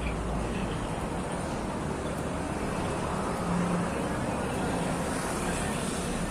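Steady street ambience of road traffic: vehicles running past.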